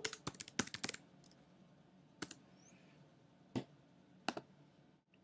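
Faint typing on a computer keyboard: a quick run of keystrokes in the first second, then a few single clicks spaced out over the next few seconds.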